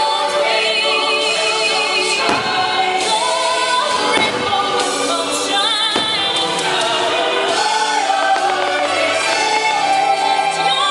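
Fireworks-show soundtrack playing loud over the park's speakers: orchestral music with a choir singing, and a few sharp bangs of fireworks bursting over it, about 2 and 4 seconds in and near the end.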